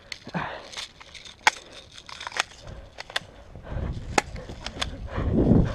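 Sharp clicks and snaps from a spring-powered airsoft pistol being handled, cocked and fired, several spaced out over a few seconds. A louder low rumble of movement on the microphone builds near the end.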